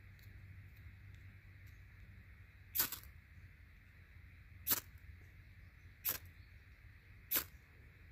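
Ferro rod struck four times, each a short sharp scrape, one to two seconds apart.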